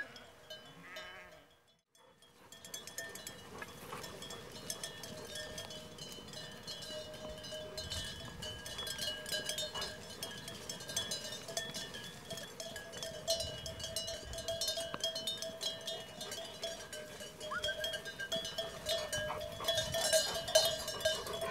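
A flock of sheep on the move with many sheep bells clanking and jingling continuously, growing louder near the end, with a bleat or two.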